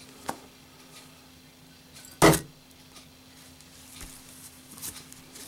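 A lit brushed-chrome Zippo lighter with a steel insert is dropped and lands with a single loud metallic clank about two seconds in, ringing briefly. A faint click comes just before it, and a few light taps follow near the end as the lighter is handled.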